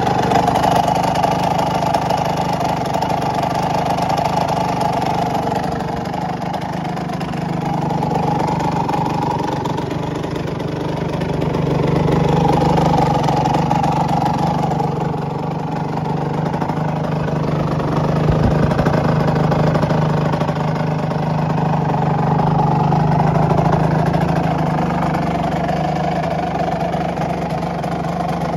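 Suzuki RM125 single-cylinder two-stroke engine with an HGS exhaust idling steadily, its note swelling and easing gently a few times.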